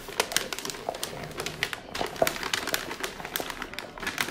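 Wrapping paper crinkling and rustling as it is folded and pressed around a gift box, with many irregular sharp crackles.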